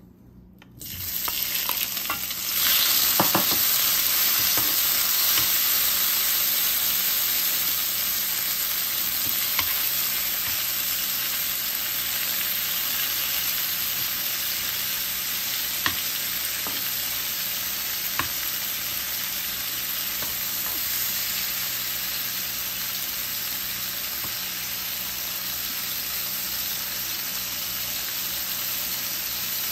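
Tomato wedges frying in hot oil in a nonstick wok, stirred with a wooden spatula: a steady sizzle that starts about a second in and jumps louder at about two and a half seconds, with a few light taps of the spatula.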